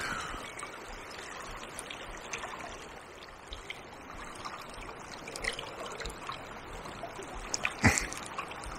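Fast-flowing river water running and trickling steadily, with a few faint clicks and a sharper one near the end.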